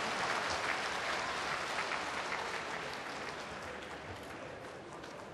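Arena crowd applauding the announcement of a rematch (torinaoshi) in a sumo bout, the applause dying away gradually.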